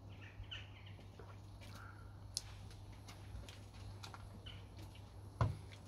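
Faint bird chirps over a steady low hum, with a sharp click about two and a half seconds in and a louder knock near the end.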